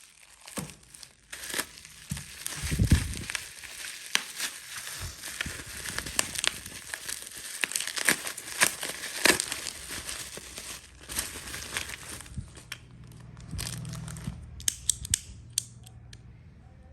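Packaging being crumpled, crinkled and torn by hand as a parcel is unwrapped, with many sharp crackles. Near the end it thins to a few isolated clicks.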